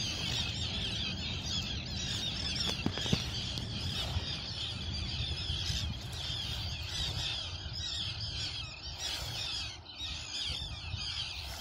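A large flock of seabirds calling continuously in high, overlapping squeals and chatter over a low steady rumble, with one sharp click about three seconds in.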